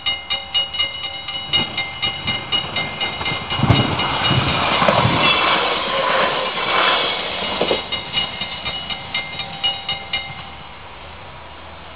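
Level crossing warning bell ringing rapidly, about four strokes a second, as a Veolia Velios electric train passes over the crossing. The train's rumble and wheel clatter swell over the bell from about four to eight seconds in. The bell stops about ten seconds in once the train has cleared.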